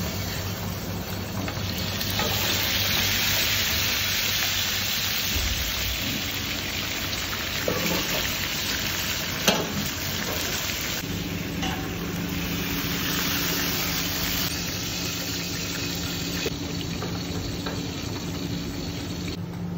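Small whole fish frying in hot oil in a pan, a steady high sizzle that is loudest in the first few seconds, over a steady low hum. A single sharp clink about nine and a half seconds in.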